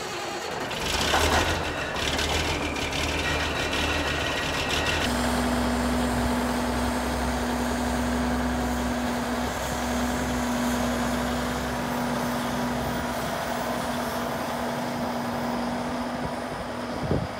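Diesel engine of a large articulated four-wheel-drive farm tractor running just after a cold-morning start. About five seconds in it settles into a steady low drone with a constant hum as the tractor pulls out.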